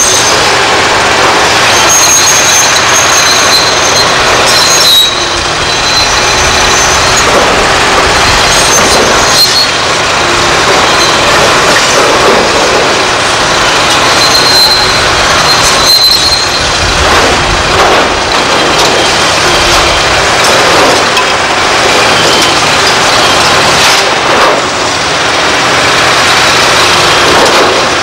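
Liebherr R964 demolition excavator working, its diesel engine and hydraulics running under load as its demolition tool crunches through concrete and debris falls. High-pitched squeals come and go over the loud, steady din.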